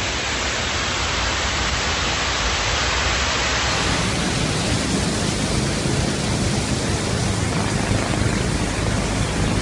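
Fast-flowing muddy floodwater rushing, a steady, dense noise. About four seconds in it changes to a deeper rush with more low rumble.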